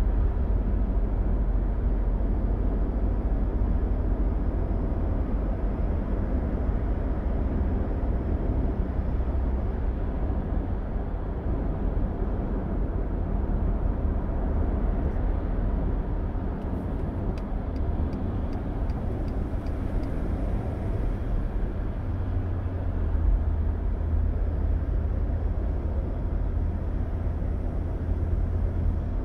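Steady low rumble of road and engine noise from inside a car's cabin at highway speed. A faint ticking runs for a few seconds past the middle.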